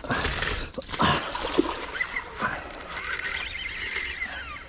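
A hooked fish, which the angler takes for an ox-eye herring, jumping and thrashing at the water surface on the line, throwing up splashes. The loudest splash comes about a second in.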